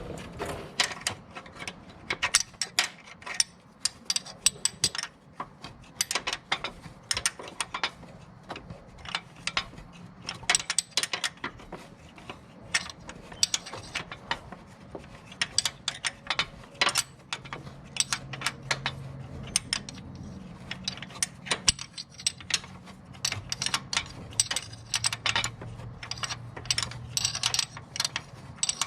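Hand ratchet wrench clicking in quick, irregular runs of strokes as a bolt is turned.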